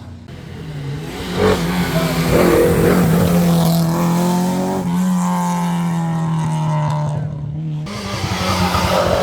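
Rally car engine revving hard as the car comes through the stage, building up from about a second and a half in. The engine note breaks sharply twice, near the middle and near the end, as it shifts gear.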